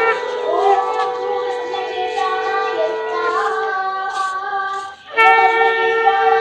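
Live Indian devotional music: a high voice sings a gliding melody over a steady held drone. The music drops out briefly about five seconds in, then comes back louder.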